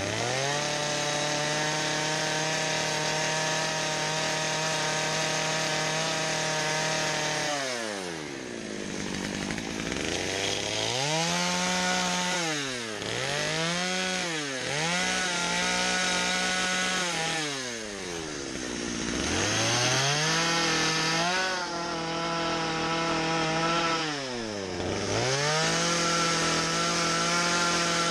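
Stihl chainsaw cutting a deep slot into a log at full throttle. Its engine pitch drops and climbs back several times as the throttle is eased off and squeezed again between plunges.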